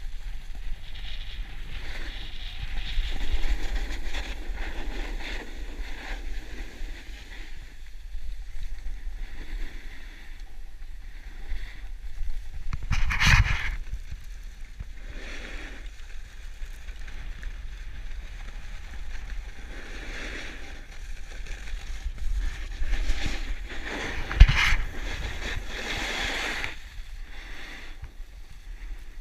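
Wind buffeting an action camera's microphone over the hiss and scrape of edges carving packed snow on a fast descent, swelling and fading with the turns. Two sharp knocks stand out, about 13 and 24 seconds in.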